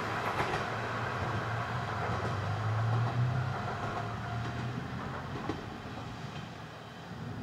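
Kanto Railway Joso Line diesel railcar passing through without stopping and running away, its low engine drone and running noise fading out after about five seconds.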